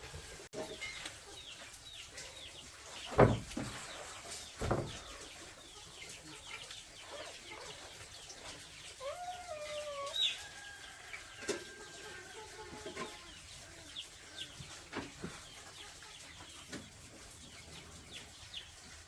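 Chickens clucking and chirping, with two sharp knocks about a second and a half apart a few seconds in.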